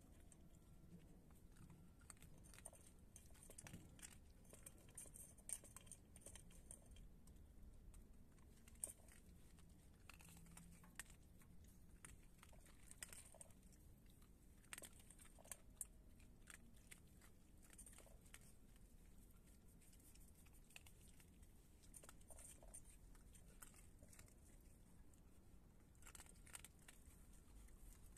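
Raccoons eating dry kibble: faint, irregular crunching and chewing with scattered sharper clicks.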